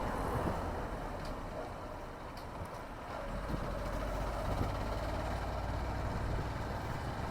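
Small motorcycle engine running steadily under road and wind noise, heard through a phone earphone microphone inside a closed-visor helmet. It eases off slightly about two seconds in and picks up again a second or so later.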